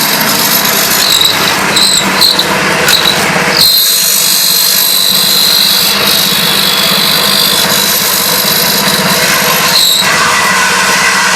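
Electric wood drilling and mortising machine running steadily with a constant motor hum. Short high squeals come in the first few seconds, then a sustained high-pitched whine holds for about six seconds before breaking off into the steady running again.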